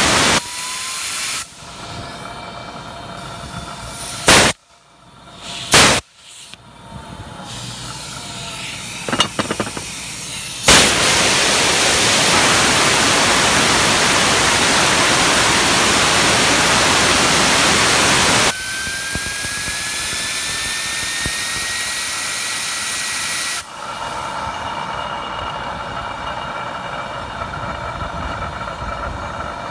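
Power take-off (PTO) running, with a thin whine that rises in pitch for about five seconds past the middle and then holds steady: PTO bearings whining at high RPM. Before that come two short loud bursts and then a loud steady hiss lasting about eight seconds.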